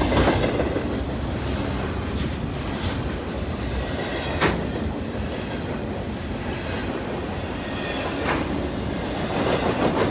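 CN freight train's cars rolling past: a steady noise of steel wheels on rail, with a few sharp clicks as wheels cross rail joints.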